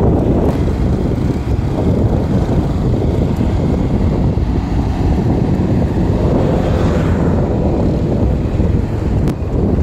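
Wind rushing over the microphone of a moving motorcycle, mixed with the bike's engine and road noise, swelling briefly about six to seven seconds in.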